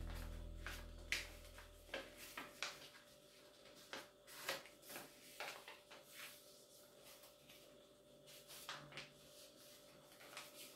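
A sheet of paper being folded and creased by hand on a table: faint rubbing and short, sharp paper crackles at irregular intervals as the fingers smooth the folds. Background music fades out over the first second or so.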